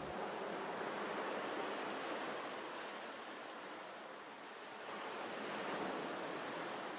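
Small waves breaking and washing up a sandy beach in a steady surf wash, swelling again a little after five seconds in.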